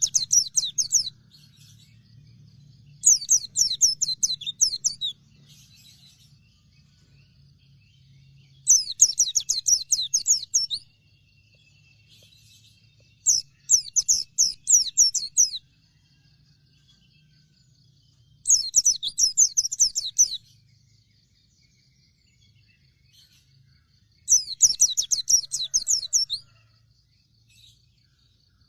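Pleci dakun, a white-eye, singing in full song: six fast, high-pitched twittering phrases of about two seconds each, coming roughly every five seconds.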